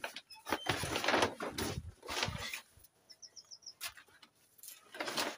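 Black plastic sheeting rustling and crinkling in bursts as it is spread and smoothed by hand over a gravel bed. A bird gives a quick run of about five short high chirps about three seconds in.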